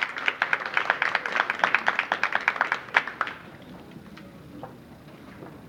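Audience applause: many hands clapping fast, which stops about three seconds in and leaves only faint room noise.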